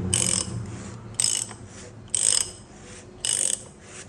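Ratchet wrench clicking in four short strokes about a second apart, tightening the oil filter housing cap with a large socket.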